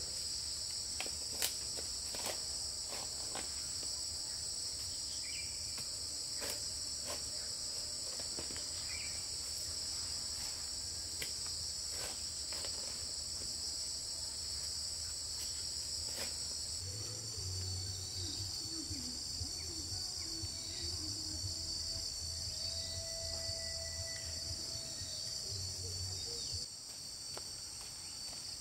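Steady high-pitched chorus of insects, crickets or cicadas, running without a break, with occasional sharp knocks in the first half.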